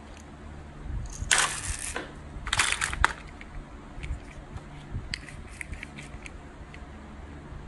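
Plastic and die-cast toys rattling and rubbing together in a plastic basket as hands rummage through it, in two short bursts about a second and two and a half seconds in, followed by light clicks as a plastic toy is handled.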